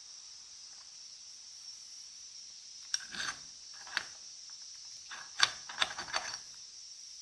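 Metal parts and tools clinking and rattling as they are handled: single clicks about three and four seconds in, then a short run of clinks near the end, the loudest first.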